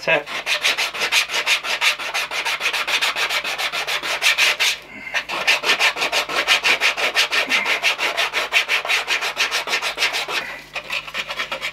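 Hand-sanding the edge of a rolled 30 thou plasticard tube with a small abrasive held in the fingers: rapid, even rubbing strokes, with a short pause about five seconds in, stopping shortly before the end.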